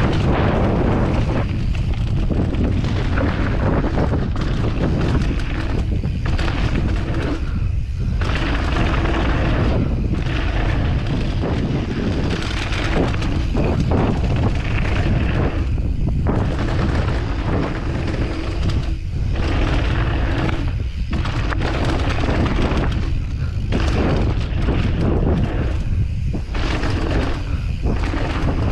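Wind buffeting an action camera's microphone during a mountain-bike trail run, with tyres rumbling over dirt underneath. It is a loud, unbroken rush that surges and dips every second or two.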